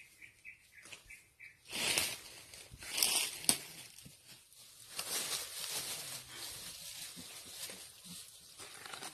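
Dry leaf litter rustling and crackling as chimpanzees roll and scuffle over it, loudest in two bursts about two and three seconds in, then steady rustling. Faint short chirps repeat in the first second and a half.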